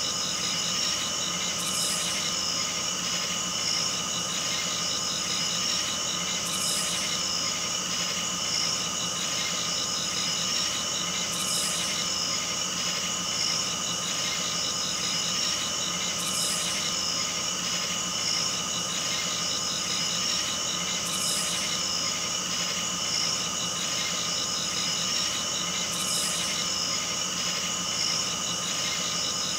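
A steady electronic drone of several held tones, one high tone warbling, with a short high hiss repeating evenly about every five seconds.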